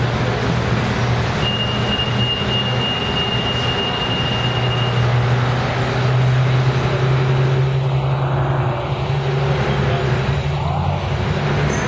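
Diesel engine of a TMC RTS transit bus running steadily as the bus drives past and away. A thin, high whistle sounds for a few seconds near the start.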